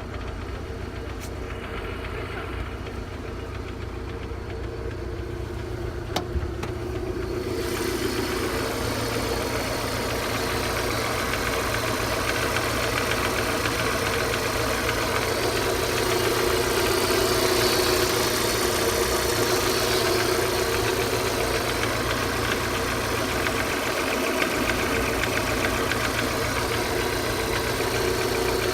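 Peugeot 406's 1.8-litre LFY petrol engine running steadily with a knock, which the owner records as the fault to be diagnosed. The sound grows louder and brighter about eight seconds in.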